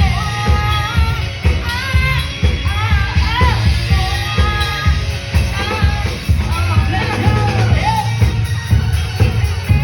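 Live band music at full volume: a heavy, fast-pulsing bass beat under a sliding, bending melody line.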